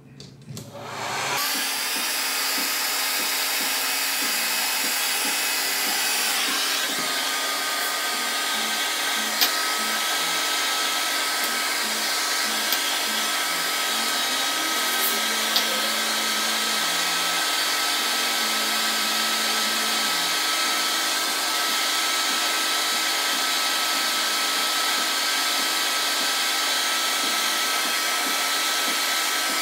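Handheld hair dryer switched on about a second in and running steadily, a loud rush of air with a steady whine, blowing on a wig.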